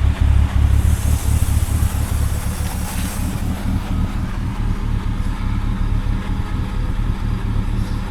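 2004 BMW E46's engine running steadily with a knocking, pinging sound, which the owner links to having driven the car through water.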